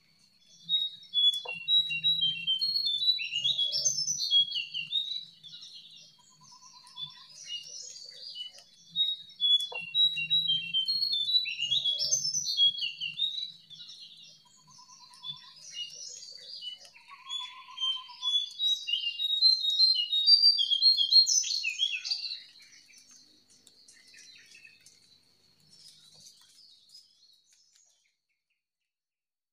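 Wild jongkangan bird singing: rapid, varied high chirping phrases in three long bursts, fading to a few faint notes near the end. A faint steady high tone runs behind it, and a few short lower trills come in between the phrases.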